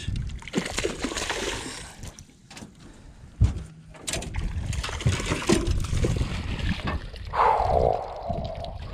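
Water splashing and sloshing around a small fishing boat as a hooked bass is brought in, with a sharp knock about three and a half seconds in.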